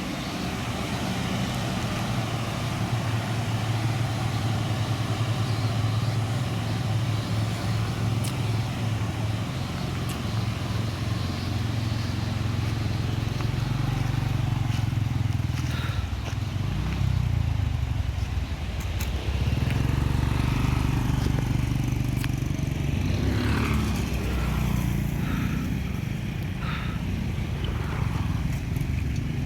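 Heavy truck's diesel engine running steadily under load, with its pitch shifting about halfway through. A few brief higher sounds come near the end.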